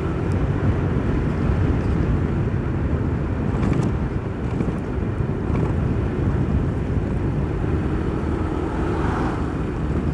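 Motorcycle running at a steady cruise, heard through a helmet-mounted microphone as a constant low engine drone mixed with wind and road rush.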